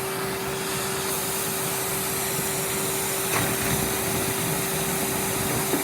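Vacuum cleaner running steadily with a constant motor whine while sucking up wine gums, which go through with not much noise; a faint tick comes about three seconds in.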